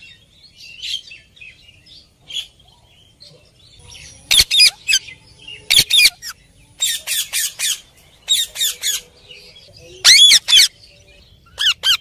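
Red-breasted parakeet calling: soft scattered chirps at first, then from about four seconds in, short, harsh, high calls in quick runs of two to five, the loudest run near ten seconds.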